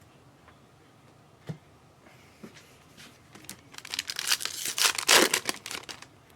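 A trading-card pack wrapper being torn open and crinkled: a light tap about a second and a half in, then a dense burst of crackling about four seconds in that lasts about two seconds.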